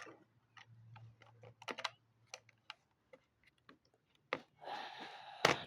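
Small plastic Lego pieces being handled: a scatter of light clicks and taps, then a short rustle and a sharper click near the end.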